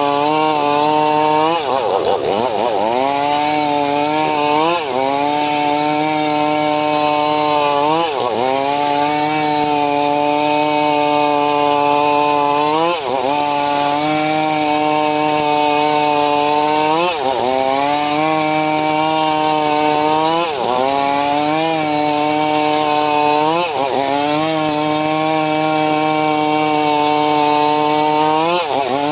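Homemade circular sawmill cutting mahogany: a steady high running tone that sags in pitch and climbs back about every three to five seconds as the blade bites into the wood and is slowed by the load.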